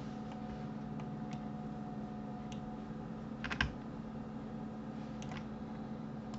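Scattered clicks of a computer mouse and keyboard, with the loudest cluster of several quick clicks and a soft thump about three and a half seconds in, over a steady low hum.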